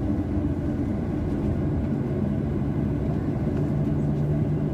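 Steady low rumble heard inside a Boeing 737-700's cabin as it is pushed back, with a low steady hum that grows stronger about halfway through.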